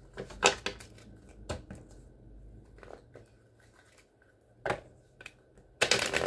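Tarot cards being handled: a few separate sharp snaps and taps, then a short dense rustle of shuffling near the end.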